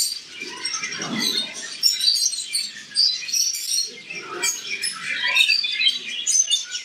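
Many small caged finches chirping at once: a dense, continuous chatter of short, high chirps overlapping one another.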